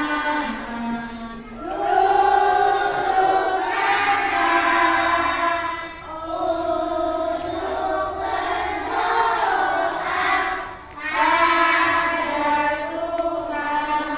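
A group of young children singing together with women's voices, in long held phrases with short breaks about every four to five seconds.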